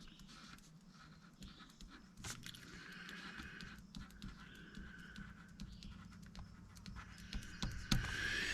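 Faint rustling and scattered small clicks of paper forms and a plastic sample bag being handled.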